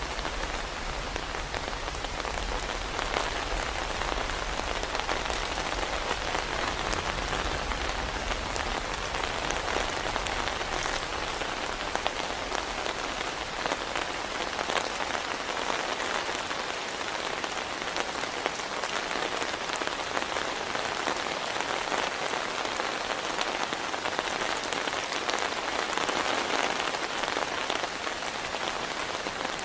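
Heavy rain falling steadily: a dense hiss of drops pattering on a surface. A low rumble underneath fades out about halfway through.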